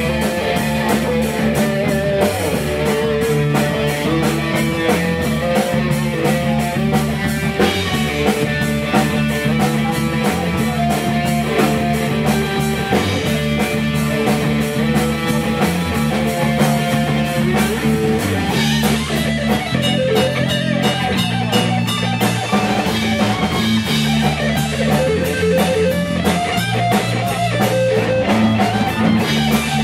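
Live rock band playing an instrumental passage: electric guitar and bass guitar over a steady drumbeat, with a guitar line moving above the held low notes.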